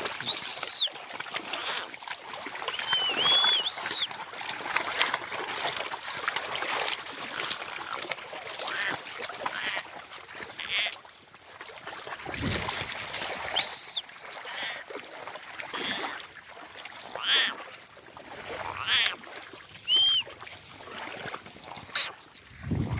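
Sheep and goats in a village yard: scuffing and splashy noises, with a few calls scattered through. Several short, high, arching whistled notes stand out, the loudest about half a second in and again near the middle.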